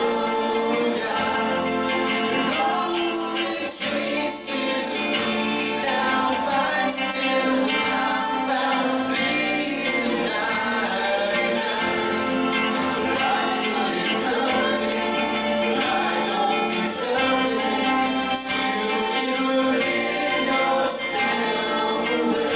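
Worship music in a church service: several voices singing together over instrumental accompaniment, held without a break.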